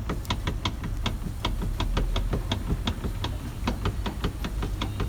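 Rapid, fairly even clicking, about five clicks a second, over a low steady hum, from the rear driveline of a Nissan 180SX. It is the sign of play that the owner suspects is in the driveshafts or in the differential's backlash.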